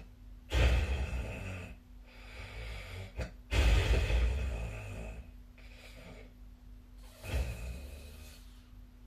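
A sleeping person snoring: three loud snores about three seconds apart, with quieter breaths in between.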